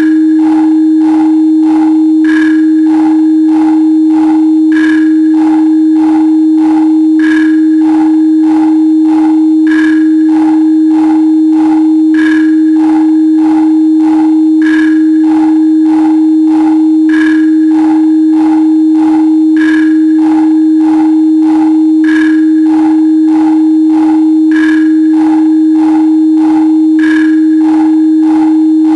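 A steady, loud pure sine tone at 314.15 Hz (pi times a hundred), with a soft beat pulsing over it at 97 beats a minute and a brighter accent about every two and a half seconds.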